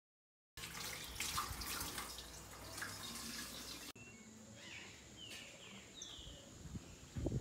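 A rush of running water with light crackles for about three seconds. It cuts off, and a few short bird chirps follow over a faint, steady high-pitched tone.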